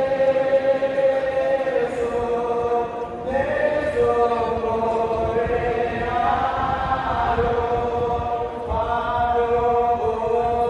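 Large choir and congregation singing a hymn together: slow, long-held notes stepping from pitch to pitch, with short pauses for breath about three seconds in and again near nine seconds.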